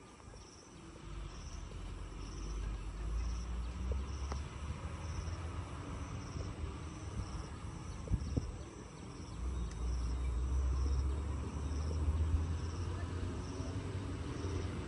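An insect chirping in a steady, even rhythm, a little faster than once a second, high-pitched. Under it a low rumble swells twice, about a second in and again past the middle.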